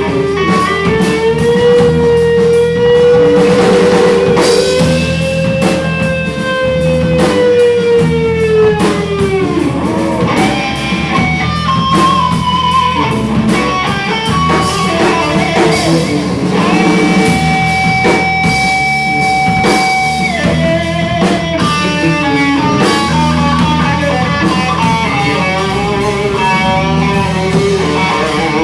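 Live rock band playing an instrumental passage with drums, a guitar lead holding long notes that bend up and slide down in pitch, one held steady for about three seconds near the middle.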